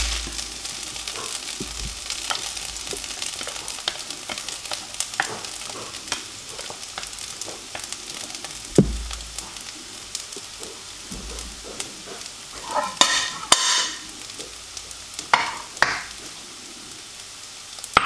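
Fried rice in a hot wok sizzling faintly while a spatula scoops and presses it into a bowl, with frequent scrapes and taps of the spatula on the wok and bowl. A louder bout of scraping comes about two-thirds of the way through, and a few sharp knocks stand out.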